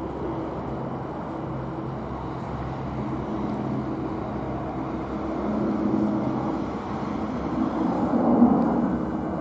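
Airbus A320-214 jet airliner on landing approach with gear down, its CFM56 turbofan engines at approach power as it passes low overhead: a steady jet noise with a few low hums, growing louder and loudest near the end.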